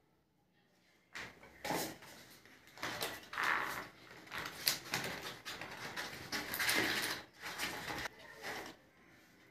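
Cardboard box, paper insert and foam packaging tray rustling and scraping as they are handled, in irregular bursts starting about a second in.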